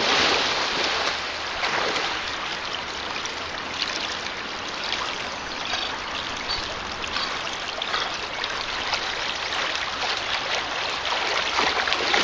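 Creek water rushing steadily. A chocolate Labrador retriever splashes through it, louder in the first second as she bounds off and again near the end as she wades back.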